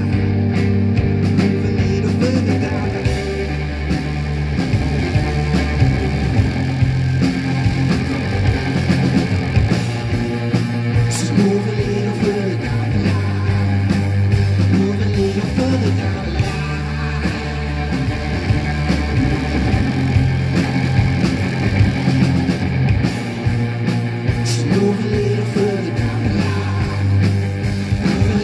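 Rock band playing live: electric guitar, bass guitar and drums, with a singer's voice over them.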